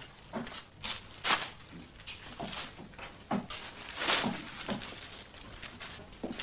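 A thin plastic carrier bag crinkling and rustling as it is handled, in a string of irregular short crackles, loudest about four seconds in.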